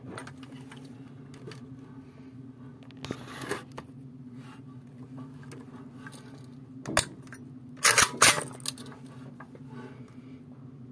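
Mechanical clicks and clacks from a Norinco AK-pattern rifle being handled before firing, over a steady low hum: a short rustle about three seconds in, a single click near seven seconds, then a sharp double clack about a second later, the loudest sound. No shot is fired.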